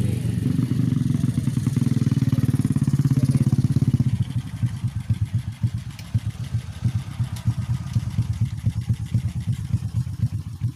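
Small motorcycle engines running on a dirt track. The sound is strong and steady for the first few seconds, then settles into a low, evenly pulsing run, like a bike idling close by.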